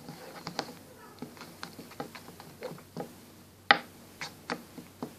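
Scattered light taps and clicks of things being handled, with one sharp knock about three and a half seconds in.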